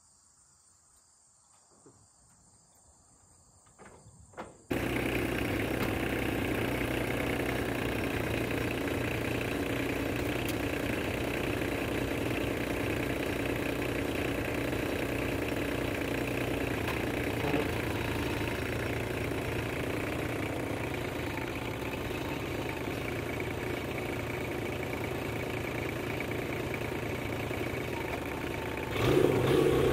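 About five seconds of near silence, then an orange Kubota tractor's engine running steadily at idle, louder and busier near the end as the tractor is driven.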